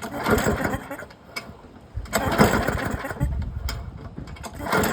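1990s Poulan Pro push mower's small engine being pull-started on its recoil cord, three pulls about two and a half seconds apart, each a short burst of cranking that fades away: the engine turns over but does not catch and run.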